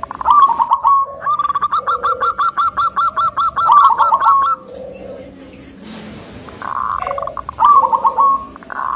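Zebra dove (perkutut) calling: fast runs of short, repeated cooing notes, with a long run of about three seconds early in the call and a shorter run near the end, separated by softer low notes.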